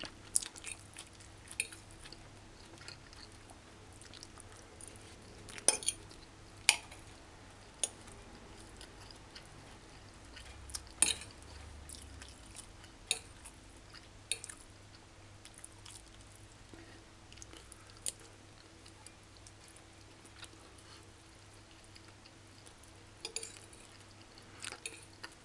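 Metal fork clinking and scraping against a ceramic plate while eating rice and stew: a dozen or so sharp, irregular clinks over a faint steady hum.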